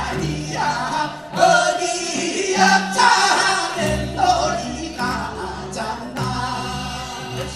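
A group of singers performing a Korean folk song over an amplified backing track with a steady bass line, several voices joining on the phrases.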